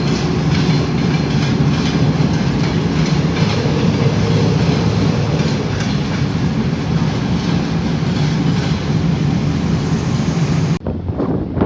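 Passenger train rolling past close by: a steady heavy rumble with wheels clicking over the rail joints. It cuts off suddenly near the end, giving way to quieter wind noise.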